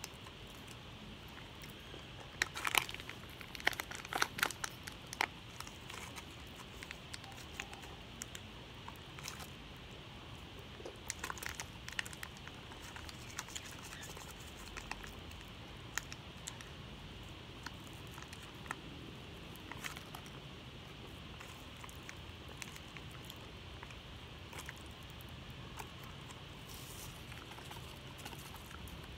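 Plastic candy packet crinkling and rustling as it is handled, in scattered crackles, busiest a few seconds in and again around eleven seconds in.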